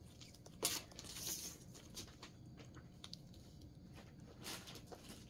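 Faint rustling and a few light taps from a printed cross-stitch canvas being handled and measured, the clearest tap about a second in.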